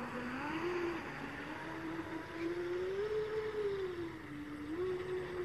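A 6S electric radio-controlled speedboat's motor whining as the boat runs across the water, its pitch rising and falling with the throttle, over a steady hiss.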